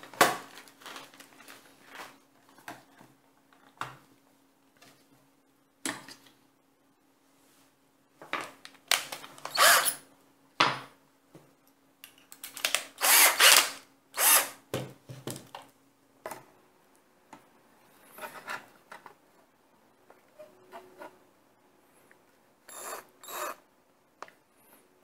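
Irregular bursts of scraping and clattering as tools and the vacuum's plastic housing are handled and worked on, loudest in the middle, over a faint steady hum.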